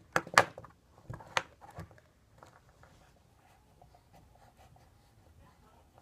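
Small clicks and scrapes of lighter parts being handled and pried apart: two sharp clusters of clicks in the first second and a half, then faint fiddling.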